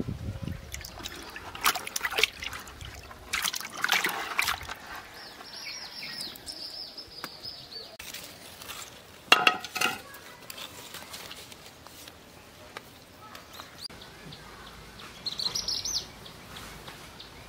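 Water splashing and sloshing in a clay pot as a hand gropes for live snakehead fish, followed by a couple of sharp wet slaps about nine seconds in, the loudest sound. A high thin whistling note sounds briefly in between.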